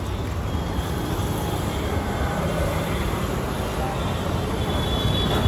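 Busy city road traffic: a steady rumble of motorcycles, cars and auto-rickshaws passing close by.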